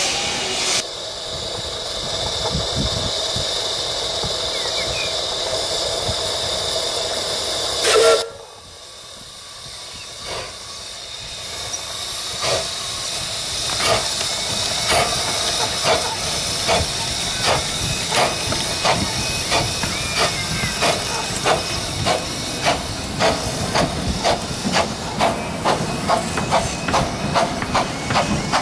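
Miniature 15-inch-gauge steam locomotive standing with a steady hiss of escaping steam, and a brief loud note about eight seconds in. After that, a steam locomotive pulls away, its exhaust chuffs growing louder and quickening to about two a second.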